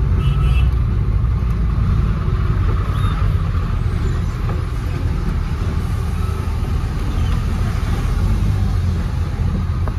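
Goods truck's diesel engine running with a steady low rumble, with road noise, heard from inside the cab while crawling through traffic.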